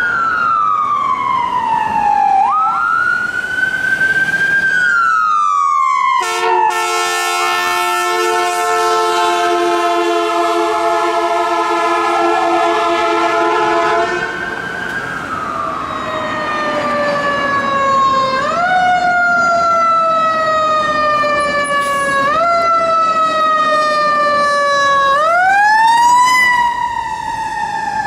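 Fire truck responding with its siren wailing, the pitch sweeping up and down. About six seconds in, air horns sound a steady chord of several tones for roughly eight seconds. Then the siren takes over again, rising sharply and falling slowly several times.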